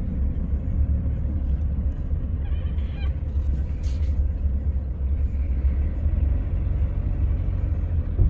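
A heavy vehicle engine running steadily with a low rumble. A short high squeal comes about three seconds in.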